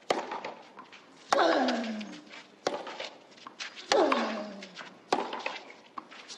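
Tennis rally: racquets strike the ball in turn about every 1.3 s, five shots in all. Every other shot comes with a player's loud grunt that falls in pitch, twice.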